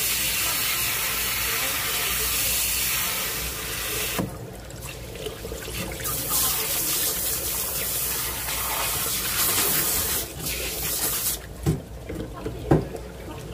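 Handheld pistol-grip spray nozzle hissing as its water jet rinses a flatfish on a plastic cutting board. The spray breaks off about four seconds in, runs again, and shuts off about ten seconds in. Near the end come two sharp wet thumps as the fish is handled on the board, the second the loudest.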